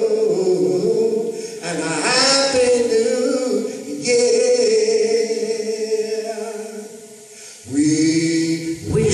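Gospel vocal group singing long held chords, with a male lead voice on top. The singing dies down about seven seconds in, and the voices come back in together just before the end.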